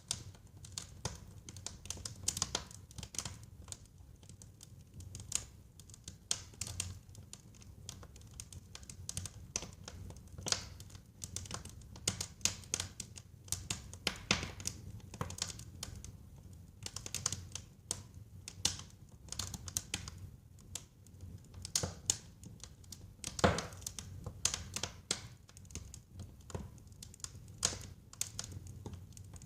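Wood fire burning in a fireplace, crackling with many irregular sharp pops over a low steady rumble of flame; one louder pop about two-thirds of the way through.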